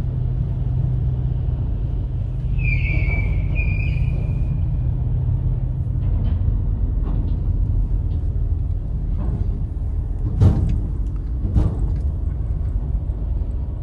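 Steady low rumble of the van's engine and tyres heard from inside the cab as it rolls slowly off a ferry. A high squeal lasts about two seconds, starting about three seconds in. Near the end come two thumps about a second apart as the wheels cross the joints of the ferry ramp.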